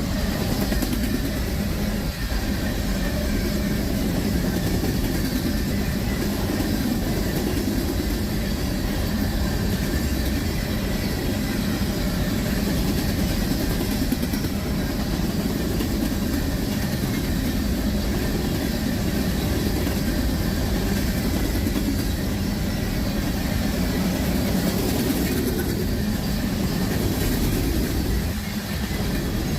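Freight train of covered sand hopper cars rolling past, a steady rumble of wheels on the rails.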